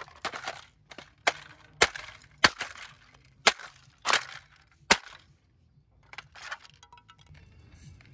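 Broken plastic toy guitar being handled on asphalt, with sharp plastic cracks and knocks about seven times in the first five seconds, then softer scraping and rattling of plastic fragments.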